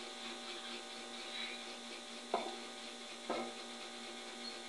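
Mini Tesla coil running, its small spark arc between the top bolt and a screwdriver blade making a steady electrical hum with a hiss. Two sharp snaps come about a second apart a little past the middle.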